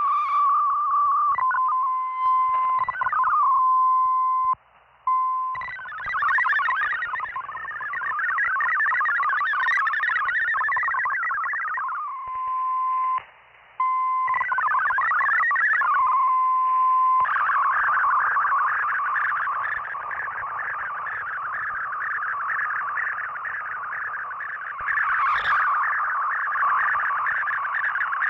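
Shortwave digital-mode data transmission heard through an SDR receiver: a steady single tone alternates with a rapid warble of many shifting tones, with two brief dropouts. From about two-thirds of the way in, it becomes a wider, denser band of data tones.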